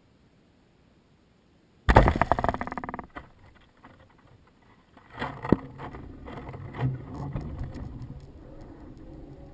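Weather-balloon payload box jolting and rattling: a sudden loud burst of rapid clattering about two seconds in, then after a short lull more knocks and a low buffeting rumble. This is typical of the balloon bursting at altitude and the payload beginning to tumble.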